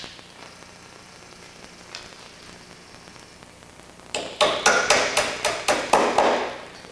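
Small hammer tapping on the wooden wing spar: about a dozen quick, light strikes, roughly four a second, starting about four seconds in.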